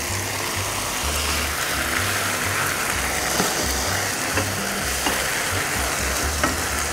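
Udon noodles with kimchi and chili paste sizzling in a wok over a gas flame as they are stirred with a silicone spatula, with a few light taps of the spatula on the pan. Background music with a steady bass line plays underneath.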